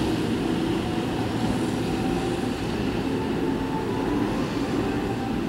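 Keihan 2600 series electric train pulling out of the station at low speed: steady motor hum and wheel running noise.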